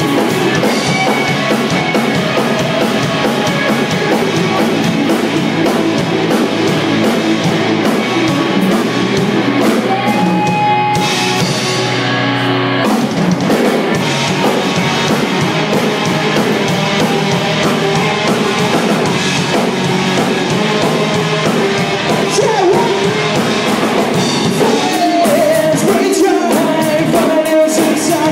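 Live rock band playing loud: drum kit, electric bass and electric guitar, with a singer. About eleven seconds in the band breaks off for about two seconds, leaving a held low note, then comes back in.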